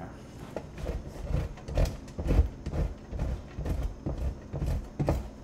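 Block of Gruyère cheese rubbed down the coarse side of a stainless steel box grater on a wooden counter, about two strokes a second, each a scrape with a dull knock.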